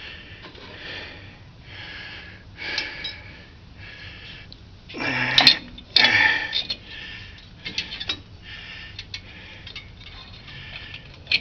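Metal drum-brake hardware and hand tools clinking and scraping as the rear brake assembly is taken apart, with scattered light clicks and a couple of louder clanks about five to six seconds in.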